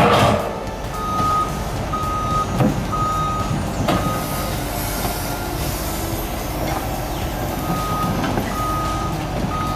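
A heavy truck's reversing alarm beeping about once a second over a diesel engine running, pausing for a few seconds midway before starting again. A loud thump comes right at the start.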